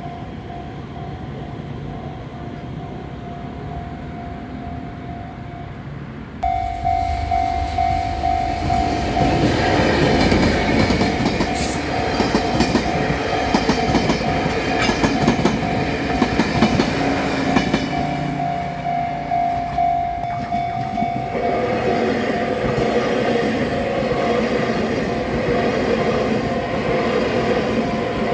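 Taiwan Railways passenger trains passing close by at a level crossing: wheels clattering and rumbling over the rails under a steady ringing tone from the crossing's warning bell. The sound jumps louder about six seconds in, and the clatter builds up from about nine seconds. In the last third, a white EMU3000 electric multiple unit is the train going by.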